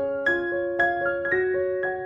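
Background music: a gentle piano melody of sustained notes played at an even, unhurried pace.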